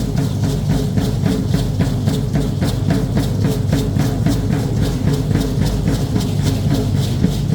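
Dance drumming: a drum beating a fast, steady rhythm of sharp strokes, about four or five a second, over a full low drum sound.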